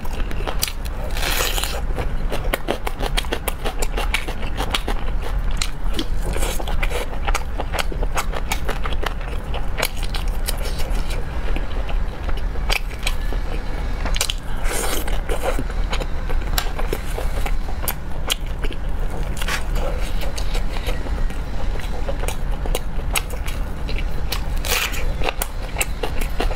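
Close-miked eating sounds: crunching bites into a whole raw red onion and chewing of tender braised pork fan bone, dense with small crackles. A few louder crunches stand out, about a second in, near the middle and near the end, over a steady low hum.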